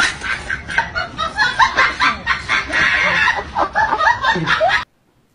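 People laughing in rapid short bursts, cut off abruptly near the end.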